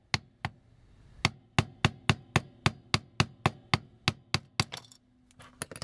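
Small hammer tapping repeatedly on the metal arm of a vintage Transformers toy to knock out a drilled rivet: about fifteen sharp strikes, settling to three or four a second, then a few lighter clicks near the end.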